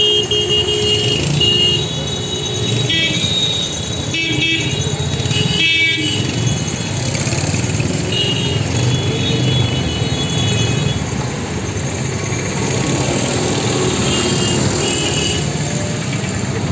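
Busy road traffic: engines running in a steady wash of noise, with vehicle horns honking on and off in short and longer blasts.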